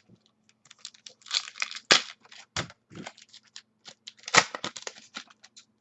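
A trading-card pack wrapper being torn open and crinkled by hand: a quick run of crackles and sharp clicks, loudest about two seconds in and again just past four seconds.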